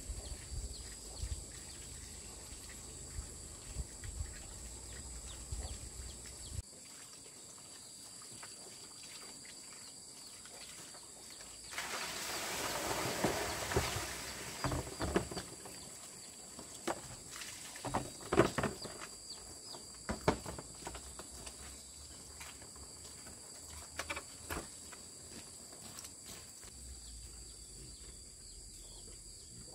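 Steady high-pitched insect chorus, with scattered sharp knocks throughout, a louder cluster of knocks around two-thirds of the way in, and a two-second swell of noise a little before that.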